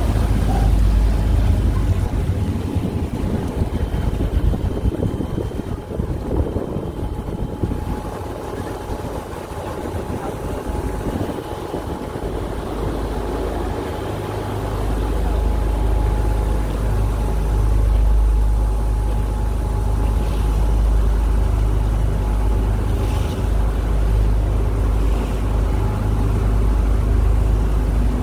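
Motorboat running under way, with water rushing past the hull and wind on the microphone; the low rumble grows louder about halfway through.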